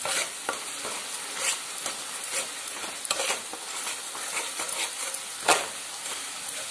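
Metal spatula stirring and scraping thick spiced masala paste around a metal kadhai as it fries, over a steady sizzle. A few sharp scrapes stand out; the loudest comes about five and a half seconds in.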